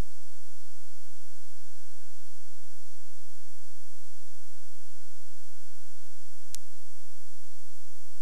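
Steady electronic whine and hum under hiss, with one sharp click about six and a half seconds in: the noise floor of a 1990s dashcam recording when no one is talking.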